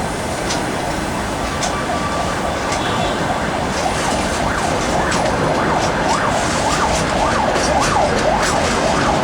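Steady rolling noise and clicks from a passing freight train's wheels. From about four seconds in, a siren wails over it, its pitch swinging quickly up and down about twice a second.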